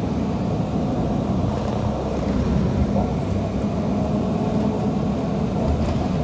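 City transit bus in motion, heard from inside the cabin: a steady low rumble of engine and road noise.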